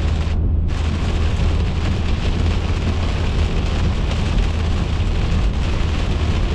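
A car driving in heavy rain, heard from inside the cabin: a steady deep rumble of road and engine noise with an even hiss of rain and wet road over it. The hiss cuts out for a moment about half a second in.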